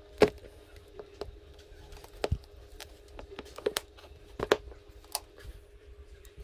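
Hand work on a motorcycle seat's upholstery: irregular sharp clicks and knocks with light rustling and handling, the loudest click just after the start, over a faint steady hum.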